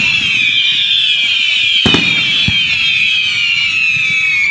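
Fireworks going off close by: many high whistles overlapping and slowly falling in pitch, with a sharp bang about two seconds in and a smaller thump just after.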